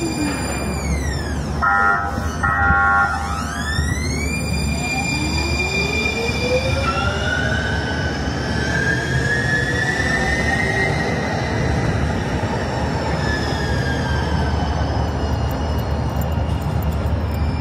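Siemens light-rail trolley (S700 and S70 cars) pulling away under power. Its traction inverters whine, falling in pitch, then sweeping up in steps and climbing into a long rising whine as it gathers speed. About two seconds in, the horn sounds two short blasts.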